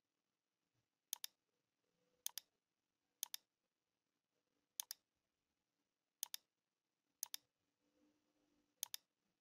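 Computer mouse clicks: seven quick pairs of sharp clicks at uneven gaps of one to one and a half seconds, with near silence between them.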